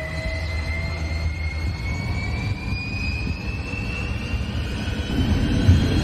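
Jet airliner engines at takeoff power: a low rumble under a whine that slowly rises in pitch. About five seconds in, the rumble grows louder and a second whine dips and then climbs.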